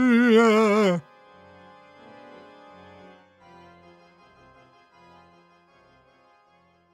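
A ghostly wavering "ooh" voice with a strong vibrato, sliding down in pitch and cutting off about a second in. Faint keyboard music then plays and fades away.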